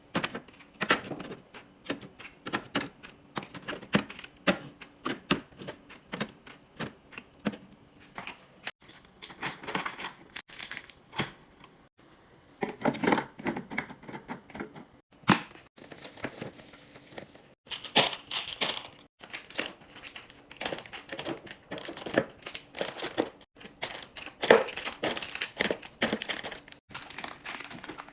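Hands handling plastic containers, jars and food packaging while stocking a fridge: a steady stream of clicks, taps and knocks as items and lids are set down and snapped, with several stretches of crinkling plastic.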